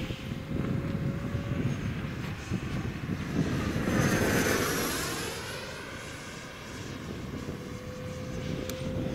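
Radio-controlled F-104 Starfighter model jet flying past, its engine noise rising to a peak about four seconds in, with a sweeping, phasing sound at its closest point, then fading as it moves away.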